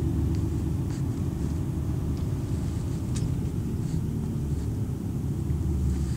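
Heavy Renault truck's diesel engine and road rumble heard from inside the cab while driving slowly: a steady low drone, with a couple of faint clicks.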